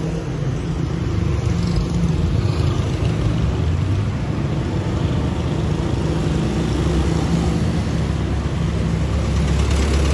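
Heavy engine of an armoured military vehicle running as it drives along the street, with motorcycles and other traffic around it: a steady low engine drone.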